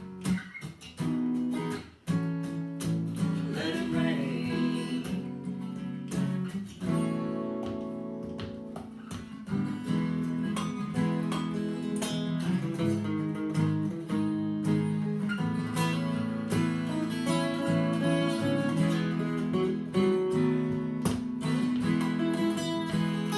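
Acoustic guitar strumming chords in an instrumental break of a folk song.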